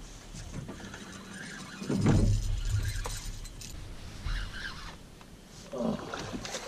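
Rod and reel being worked against a hooked catfish from a pontoon boat, with handling clicks and knocks and a brief low rumble about two seconds in.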